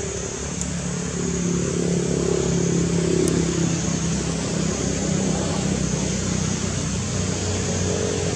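An engine running steadily with a low hum over outdoor background noise, getting louder about a second in.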